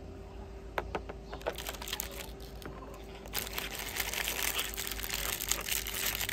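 Thin clear plastic parts bag crinkling and crackling as fingers pick at it and pull it open, the crackles getting busier and a little louder after about three seconds.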